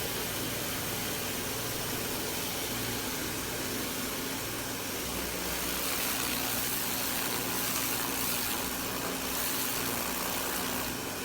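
Karcher K 2 Power Control electric pressure washer running steadily: a low motor hum under the hiss of its water spray.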